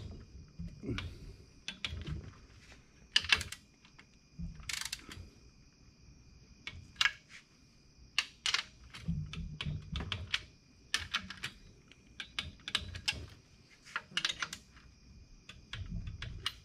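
Ratchet clicks of a torque wrench tightening the crankcase nuts of a VW Type 1 engine case to 15 foot-pounds. The clicks come in irregular short runs, mixed with a few dull knocks of metal parts being handled.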